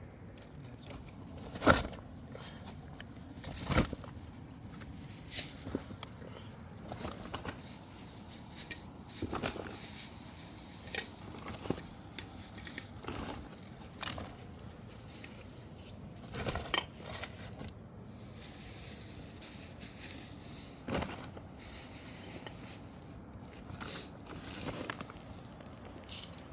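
Irregular sharp cracks, snaps and scrapes, one every second or two, over a steady background noise.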